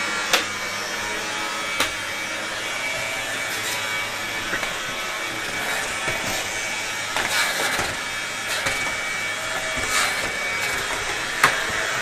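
Stick vacuum cleaner running steadily while a Belgian Malinois bites at its plastic floor head, with several sharp knocks and scrapes of the head against teeth and floor.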